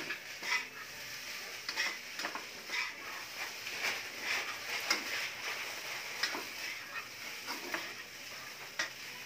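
Fried rice sizzling in a hot pan on a gas burner while a spatula stirs and scrapes it, with short scrapes and clinks against the pan every half second to a second over a steady hiss.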